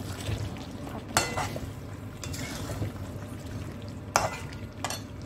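A metal spoon stirring chicken in thick masala gravy in a steel kadhai, scraping and knocking sharply against the pan a few times. The loudest knocks come about a second in and about four seconds in. The gravy sizzles quietly underneath.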